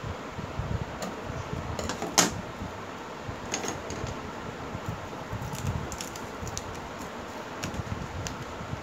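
Adhesive tape being peeled off the edges of a paper drawing: scattered small crackles and clicks, the sharpest about two seconds in.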